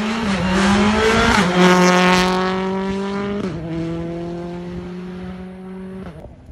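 Rally car accelerating hard past at close range, its engine note climbing and then dropping at two quick upshifts, about one and a half seconds in and again about three and a half seconds in. It fades as the car drives away and cuts off sharply near the end.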